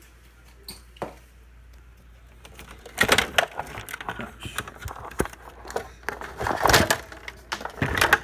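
Irregular clattering, knocking and crackling of something being handled close to the microphone, starting about three seconds in after two faint clicks.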